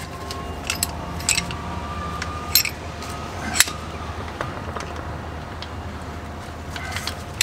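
Metallic clicks and clinks from a refrigerant-line flaring tool being handled as a copper line is set in its clamp bar: a few sharp ones in the first four seconds and more near the end, over a steady low hum.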